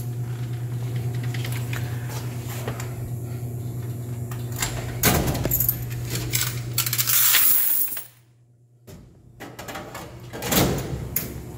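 Quarters clinking and jingling as they are handled during a laundromat coin collection, with scattered metal clicks over a steady low machine hum. The sound cuts out for about a second past the middle.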